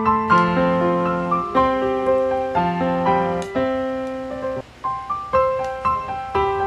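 Background piano music: gentle struck chords and a slow melody, with a brief break about two-thirds of the way through.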